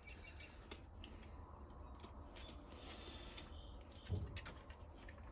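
Quiet workshop background: a faint low hum with a few light clicks and a soft knock about four seconds in, from small handling. Faint high chirps are heard briefly near the middle.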